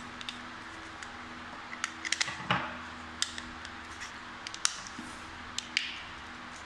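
Plastic power-bank casing and its cells being handled: a scatter of sharp clicks and taps, the loudest about two and a half seconds in, over a steady hiss and low hum.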